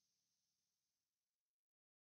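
Near silence: digital silence after the music has ended.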